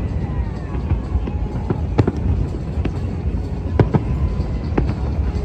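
Fireworks bursting, with sharp bangs about once a second over a steady low rumble.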